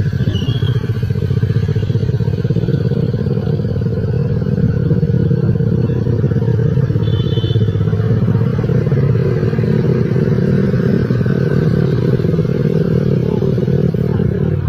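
Motor scooter engine running steadily while riding along, with road and wind noise.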